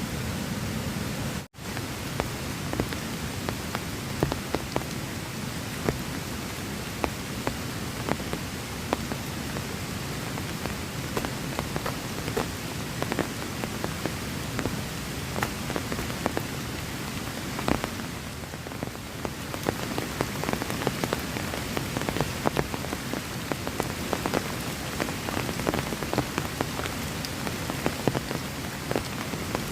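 Heavy rain falling steadily, with many separate drops striking close by as sharp ticks over the constant hiss. A brief drop-out cuts the sound about one and a half seconds in.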